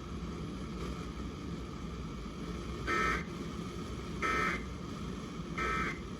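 Emergency Alert System end-of-message data bursts received on an FM radio: three short bursts of digital data tones, about 1.3 seconds apart, starting about three seconds in. They mark the end of the flash flood warning broadcast, over a steady background of radio hiss and hum.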